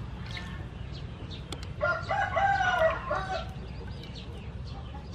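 A rooster crows once, about two seconds in, a single call lasting about a second.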